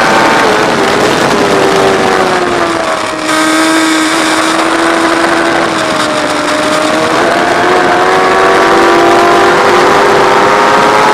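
Track motorcycle's engine running hard at speed, with heavy wind rush on the bike. The engine note drops sharply once, a little over three seconds in, then climbs steadily as the bike accelerates.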